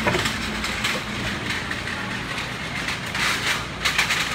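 Passenger carriages of an arriving train rolling slowly past along the platform, a steady rolling noise with a faint low hum. There are short bursts of hiss a little past three seconds in and again near four seconds.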